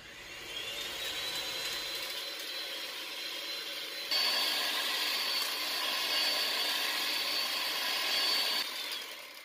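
Electric hand mixer running, its beaters whipping heavy cream in a glass bowl toward soft peaks. The motor whine climbs as it spins up, steps higher and louder about four seconds in, and winds down near the end.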